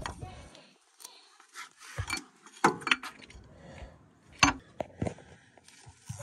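Scattered metallic clinks and knocks of hand tools and bolts as the half-shaft bolts are fitted, with a few sharp taps about two, three and four and a half seconds in.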